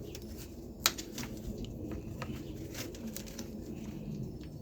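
Hook-bladed belt cutter working at a worn accessory drive belt: faint scraping and light clicks, with one sharp click about a second in.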